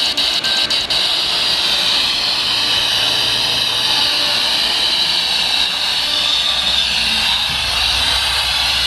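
Steady hiss of radio static from a weather radio receiver on a weak signal, with a low hum coming in about two-thirds of the way through.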